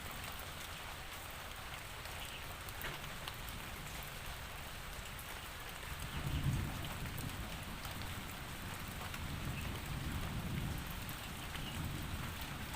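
Steady rain falling, with a low rumble of thunder coming in about halfway through and rolling on to the end.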